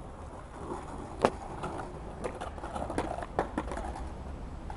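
Skateboard knocking and scraping on asphalt as the board is set and shifted under the feet: one sharp clack about a second in, then several lighter knocks.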